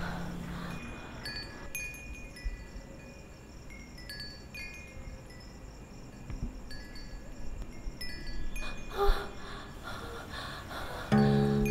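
Wind chimes tinkling as an eerie soundtrack effect: scattered high, ringing tones that come and fade irregularly. A low held droning tone comes in near the end.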